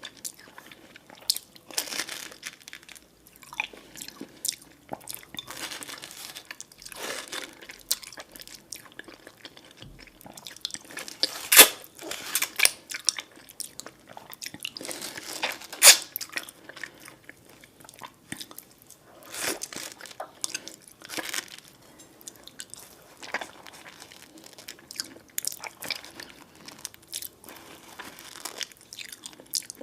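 A person chewing and biting food close to the microphone: irregular wet smacks and crunches, with two louder bites about twelve and sixteen seconds in.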